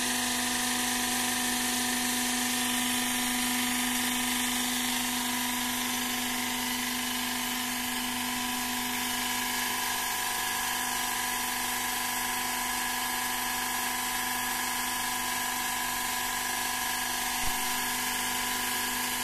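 Hydraulic plate flipping machine's power unit whining steadily as its steel arms lower. A single short knock near the end.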